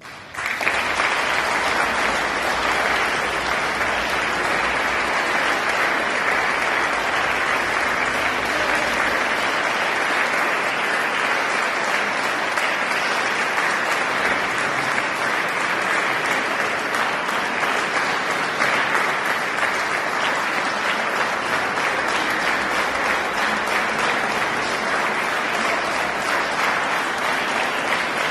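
Audience applauding, breaking out about half a second in as the choir's last chord dies away, then continuing as steady, dense clapping.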